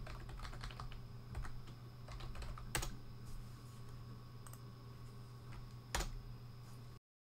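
Typing on a computer keyboard: a run of light key clicks, with two louder strokes about three seconds apart as the Enter key is hit to run each command, over a low steady hum. The sound cuts off near the end.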